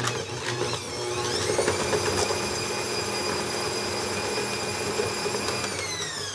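Bosch Compact 400-watt kitchen machine running with its wire whisk, whipping butter in the bowl. Its motor whine rises in pitch about a second in as it speeds up, holds steady, then begins to fall near the end as the mixer is switched off and winds down.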